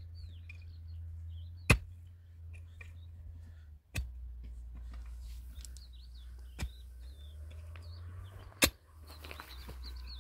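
Pickaxe striking hard, stony soil, four blows about two seconds apart, with birds chirping in the background.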